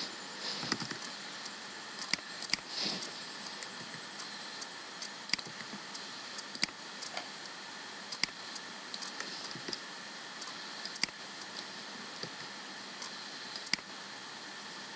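Scattered clicks of a computer keyboard and mouse, single clicks a second or few apart with a couple of short runs of keystrokes, over a steady hiss.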